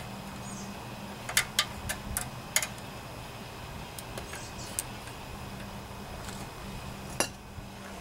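A metal scraper clinking and scraping against the valve area of a Briggs & Stratton 10 hp engine block, chipping carbon off around the valves. There are several sharp clinks, bunched a second or two in, with single ones later.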